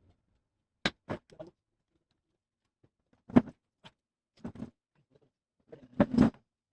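A series of short, sharp clicks and knocks at irregular intervals, from laptop parts and tools being handled, with the loudest knocks about three and a half and six seconds in.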